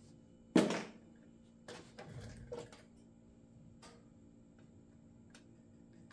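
Workbench handling noises while parts are unpacked and fitted to a chainsaw: a sharp knock about half a second in, a second of rustling and clattering around two seconds in, then a few light clicks.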